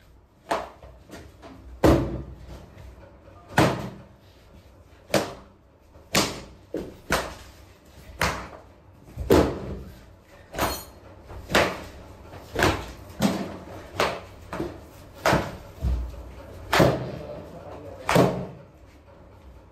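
A twisted cloth rope swung again and again, whacking hard surfaces in about 25 sharp slaps and thuds at an uneven pace of one or two a second.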